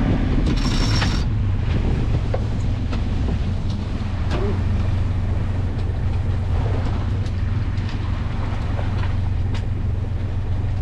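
Sailing yacht's engine running at steady revs with a low, even drone, over a hiss of wind and water.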